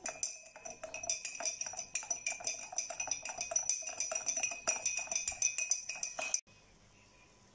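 Metal spoon stirring milk in a glass mug, clinking rapidly against the glass, which rings steadily. The stirring stops about six seconds in.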